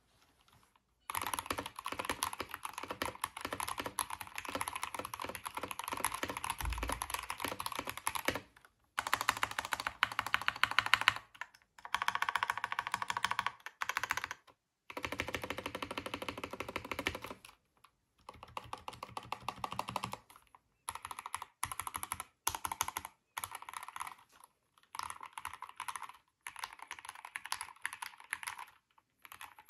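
Fast typing on a modded TM680 mechanical keyboard with Gateron Oil King linear switches, foam, tape, PE and bandaid mods, and Olivia clone keycaps: dense runs of keystrokes in several stretches broken by short pauses, the later stretches shorter.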